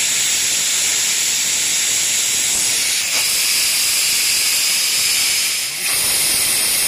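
Pressure cooker whistle blowing, steam jetting out of the weighted vent in a loud, steady hiss that dips briefly near the end. It is the sign that full pressure has built up inside the cooker.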